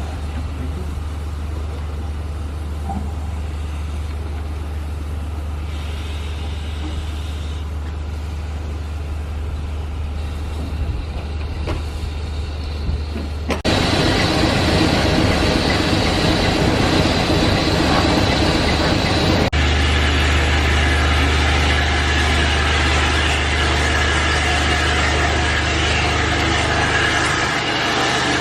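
A railway locomotive running steadily with a low hum. About fourteen seconds in it suddenly turns much louder and fuller, with hiss across the range, and it changes abruptly again around twenty seconds.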